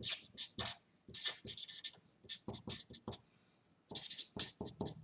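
Felt-tip marker writing on paper: many short strokes in quick runs, with a pause of about half a second a little after three seconds in.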